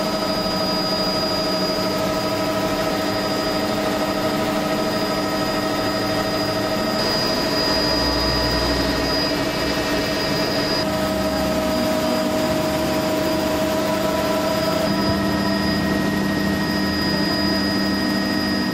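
Helicopter turbine engine and rotor heard from inside the cabin: a steady drone with a constant high whine.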